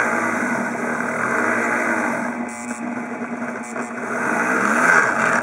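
Micro rotary tool (Dremel-type) drilling a pilot hole into an aluminium heat sink with a 2.5 mm bit at low speed; the motor's pitch dips and recovers as the bit is pressed into the metal. The cutting noise stops abruptly at the end as the bit comes out of the hole.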